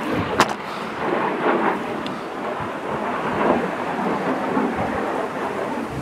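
Continuous rumbling, gusting noise of an approaching thunderstorm, swelling and easing unevenly, with one sharp click about half a second in.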